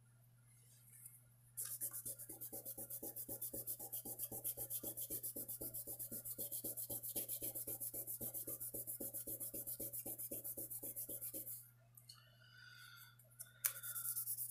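A small strip of abrasive paper rubbed rapidly back and forth by hand over the shield and handle of a slipjoint pocketknife, an even scratching of about five strokes a second. It starts about a second and a half in and stops a few seconds before the end, followed by a single light click.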